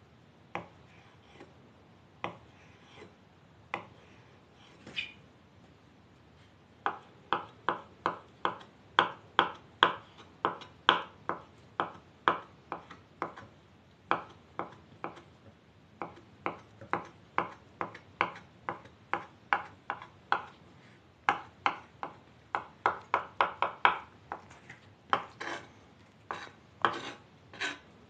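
Kitchen knife chopping boiled eggs on a wooden cutting board, the blade knocking on the wood. A few scattered knocks at first, then steady chopping of about two to three strokes a second from about seven seconds in, with brief pauses.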